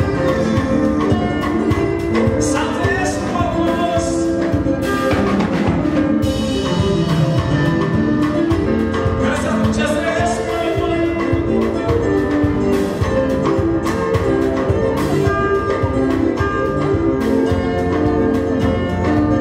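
Live gospel praise-and-worship band playing, with a drum kit keeping a steady beat under sustained instruments and singers singing into microphones.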